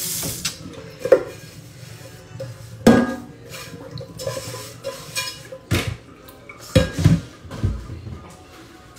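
Kitchen clatter of a frying pan and utensils being handled: irregular knocks and clinks, the loudest about a second in, about three seconds in and near seven seconds in.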